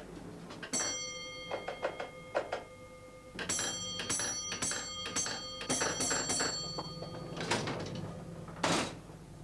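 A bell struck repeatedly in small groups: one stroke, then three, then about five, each ringing on. Two heavier clunks come near the end.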